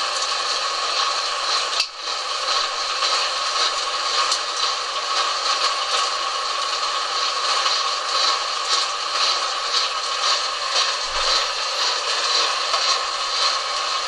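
Harrison lathe running while turning a shaft, a steady mechanical hum and hiss with faint scraping and light ticks. The sound dips briefly about two seconds in.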